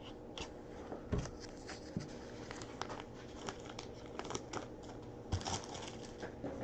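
Faint crinkling and rustling of a trading-card pack wrapper being torn and handled, with light clicks of cards being shuffled.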